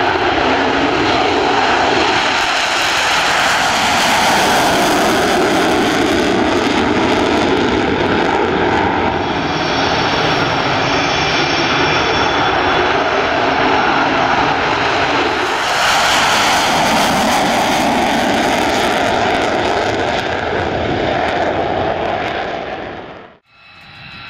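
F-35A Lightning II's Pratt & Whitney F135 turbofan running at takeoff power: a loud, continuous jet roar as the fighter lifts off the runway, with a faint high whistle in it for a few seconds midway. The roar cuts off abruptly near the end.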